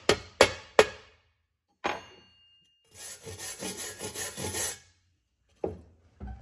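Slag chipper striking the slag off a 7018 stick weld bead: three sharp knocks about three a second, then a single knock with a brief ring about two seconds in. Then a wire brush scrubs the cleaned bead for about two seconds, followed by a couple of knocks near the end.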